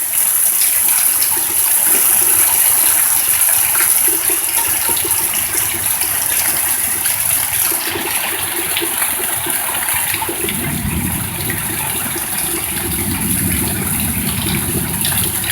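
Heavy rain pouring down, a steady, even hiss of falling water.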